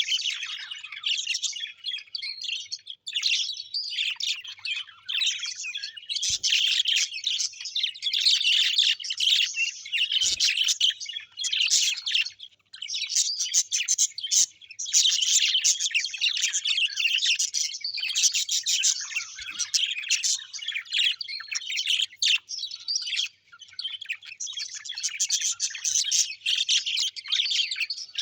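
Many small birds chirping and chattering at once, a dense high-pitched twittering with a few short lulls.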